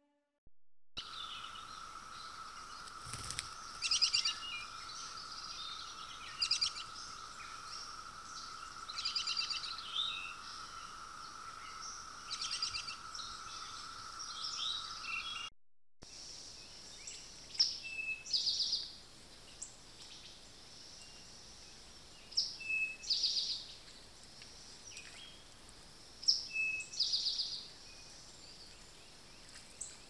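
Songbirds in woodland singing short, high trilled phrases, one every few seconds, over a faint hiss. A steady high-pitched tone runs under the songs until an abrupt cut about halfway through.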